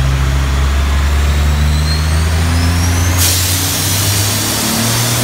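Dodge Ram's Cummins diesel running at a steady speed with a thin high whistle climbing in pitch. About three seconds in, a loud hiss starts and holds as a fire extinguisher is sprayed into the engine bay.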